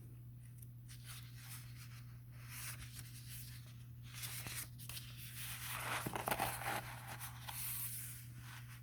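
Paper rustling and crinkling, as of a book's pages being handled and turned, loudest about six seconds in, over a low steady hum.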